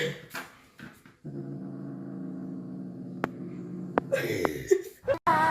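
A dog growling low and steadily for about three seconds, with two sharp clicks near its end.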